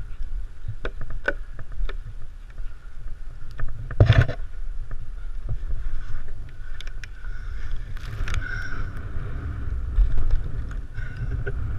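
Low wind rumble on the microphone, with scattered knocks and creaks and a heavy thump about four seconds in, as a cut section of sugar maple is brought down on a rigging rope.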